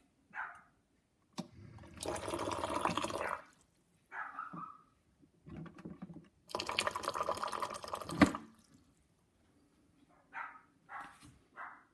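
Hot water running from an electric hot water urn's spout in two pours, each about one to two seconds long, with short squeaky blips between them.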